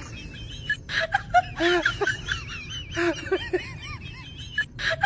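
A high-pitched voice making short rising-and-falling squeaks in quick runs, with a few sharp clicks.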